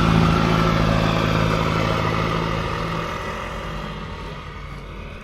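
Steady, low engine hum of a motor vehicle, gradually fading away.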